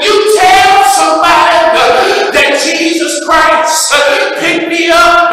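A man's voice singing into a microphone: one voice holding long notes and sliding between pitches, with a couple of short breaks, about two and three seconds in.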